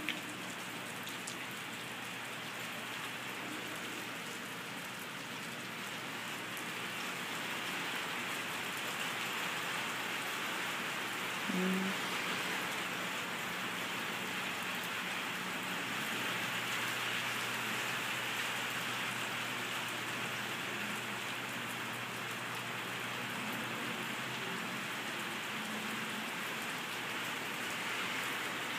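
Steady rain falling on wet concrete and puddles. A short low tone sounds once, about twelve seconds in.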